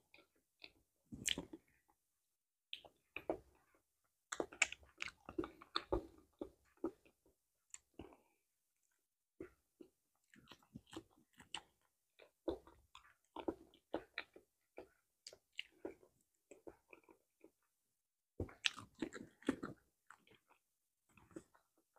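Close-up mouth sounds of a person eating soft bananas: wet chewing, smacking and bites, coming in irregular clusters with brief pauses. Near the end a banana peel is torn and pulled back.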